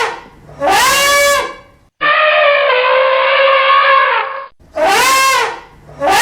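An animal calling over and over in loud, horn-like cries. Short rising-and-falling calls alternate with one longer held call about two seconds in.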